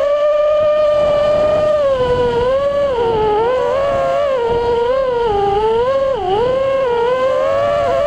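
FPV racing quadcopter's four Breeze 22 brushless motors (2206, 2400kv) spinning DAL 5045 props in flight: a steady high whine whose pitch dips and rises with throttle changes, with a sharp dip about six seconds in.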